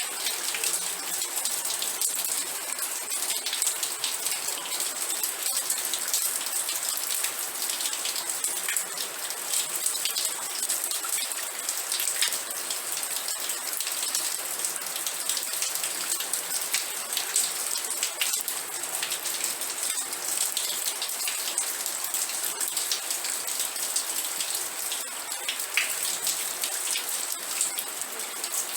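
Steady rain falling, with dense patter of raindrops hitting a surface.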